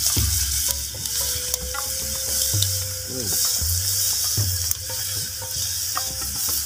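Chopped chilies and tomatoes sizzling steadily in hot oil in a frying pan over a wood fire, with a few sharp clicks as the food is moved in the pan.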